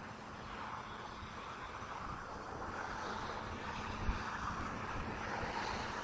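Steady rushing background noise over a low rumble, slowly growing louder, with one faint knock about four seconds in.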